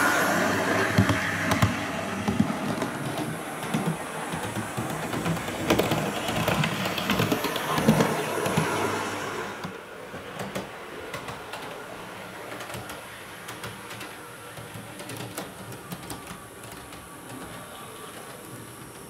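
Model railway railmotor (IDR Models Victorian Railways DERM) running on the track: a motor hum and gearing noise with the wheels clicking over rail joints, loud as it passes close. About halfway through it drops to a fainter running sound with occasional clicks as the model comes in from a distance.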